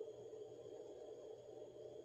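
Near silence, with only a faint steady hum of room tone.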